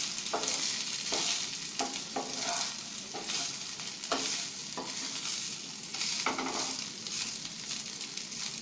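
Soaked basmati rice sizzling as it fries in ghee in a nonstick kadai, with a wooden spatula scraping and turning it in short, irregular strokes every half second or so over a steady hiss.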